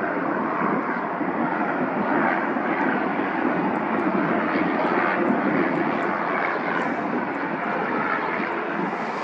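Boeing 767-200 jet engines running at low taxi power as the airliner taxis past, a steady, even jet noise.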